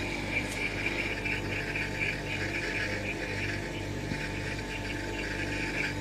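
Steady electrical hum and whirr of a frosted-up chest freezer running, with a single click at the start.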